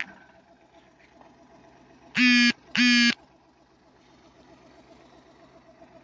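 Vehicle horn honking twice in quick succession, two short steady-pitched blasts about two seconds in.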